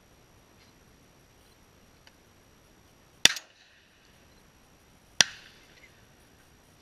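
A shotgun fired twice at flying doves, about two seconds apart. Each shot is a sharp report followed by a short trailing echo.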